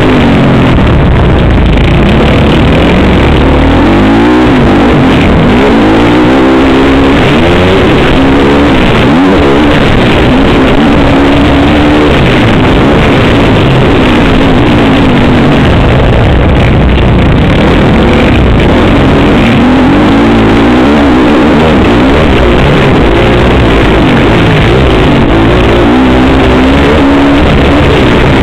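Motocross bike engine heard from an onboard camera, revving up and down over and over at race pace. The sound is very loud and distorted throughout.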